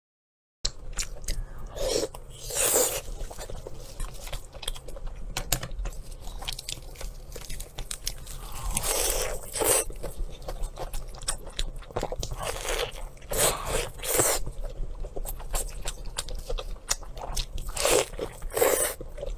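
Person biting and chewing crunchy food, with loud irregular crunches and small clicks that start about half a second in.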